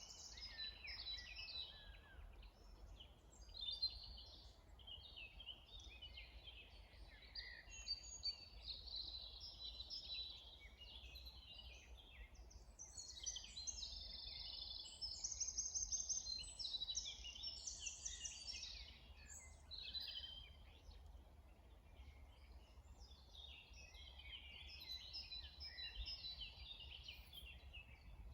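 Songbirds singing in a spring dawn-chorus style, with many short, varied phrases and trills following one another, busiest in the middle and again near the end. A faint steady low rumble runs underneath.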